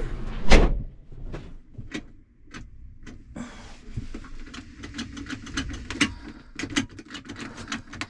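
A tractor cab door shutting with a thump about half a second in, then a run of light clicks and knocks from someone settling into the cab.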